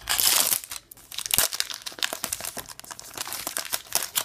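Trading card pack wrapper being torn open and crinkled: a loud rip in the first half second, then the wrapper crackling as it is pulled apart and the cards are drawn out.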